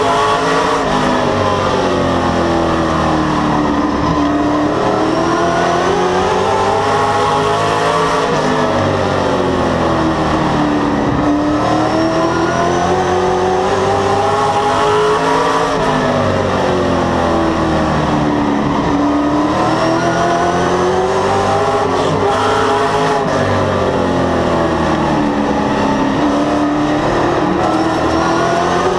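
Short-track stock car's V8 engine heard from inside the cockpit at race pace, the pitch rising as it accelerates down each straight and falling as it lifts into the turns, about four times in a regular lap-by-lap cycle.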